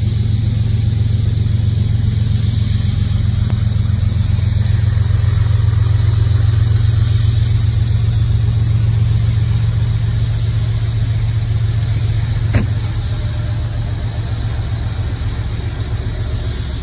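GE ES44AC freight locomotive's V12 diesel engine running with a loud, steady low drone as it approaches and passes. One short sharp click about twelve seconds in.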